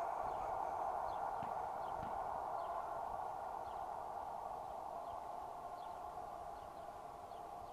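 Electric motor and gearbox of an RC scale Toyota pickup crawler whining steadily under the load of towing another RC truck, fading slowly as it drives away. Faint short high chirps sound now and then in the background.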